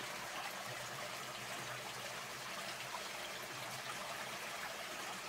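Water trickling steadily, an even hiss with no separate drips or splashes standing out.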